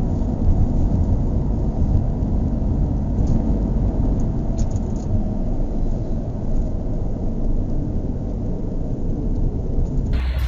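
Steady low rumble of road and engine noise from a car driving along a road, heard from inside the cabin.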